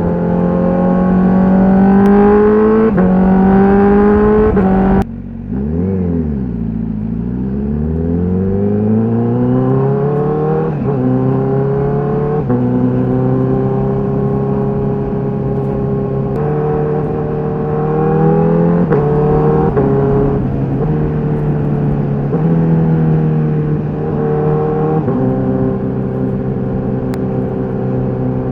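Honda CBR1000RR-R SP's inline-four engine with its stock exhaust, accelerating with the pitch climbing and dropping in quick steps at quickshifter upshifts. About five seconds in the sound breaks off sharply; the pitch then falls and rises again and settles at fairly steady revs, with several more short gear-change steps.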